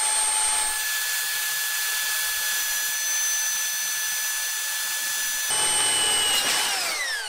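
Power drill with a 9 mm bit drilling through thin sheet metal: a steady motor whine with the hiss of the bit cutting through most of it. Near the end the drill is let off and the whine winds down in pitch.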